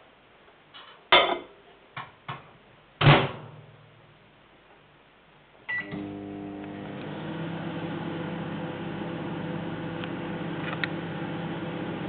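Knocks as the glass is set in and the door of a Matsui microwave oven is shut, the loudest about three seconds in. A short beep comes near six seconds, then the oven runs with a steady hum.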